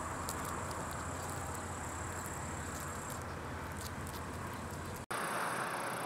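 Summer field ambience: a steady high insect buzz with faint ticks over a low hum. About five seconds in, the sound cuts out for an instant and comes back as a slightly different steady background with high insect tones.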